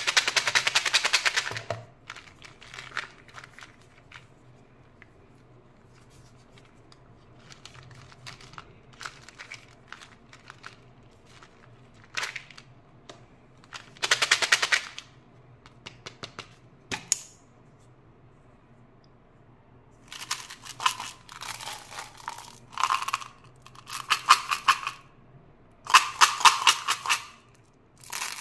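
Hard candy-coated Skittles rattling inside a plastic Skittles jar as it is shaken and handled, in rapid clicking runs that come most often in the last third, ending with the jar opened and the candies poured into a hand. Quieter scattered clicks of candy packaging being handled come between.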